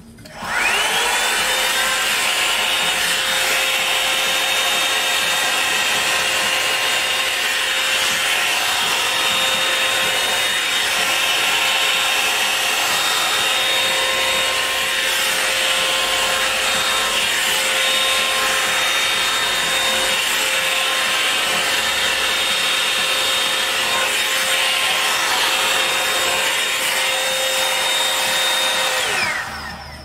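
Revlon Perfect Heat Perfectionist 2-in-1 dryer brush running: the motor spins up with a rising whine about half a second in, blows with a steady rush and whine, then winds down just before the end.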